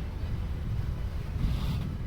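Wind buffeting the microphone, a gusty low rumble, with a brief hiss about three-quarters of the way through.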